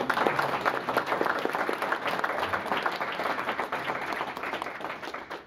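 Audience applauding, a dense patter of hand claps that dies down near the end.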